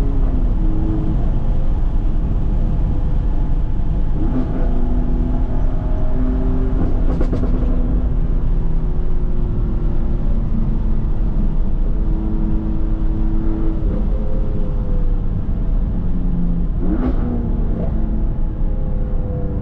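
2015 BMW F80 M3's twin-turbo inline-six with a straight-piped M Performance exhaust (secondary cat delete) under way, its engine note holding and changing pitch with throttle and speed. A few short sharp cracks stand out, the clearest near the middle and a few seconds before the end.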